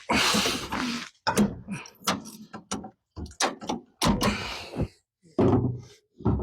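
Irregular clunks, clicks and scrapes of hand tools working against metal under the hood, in short bursts separated by brief pauses.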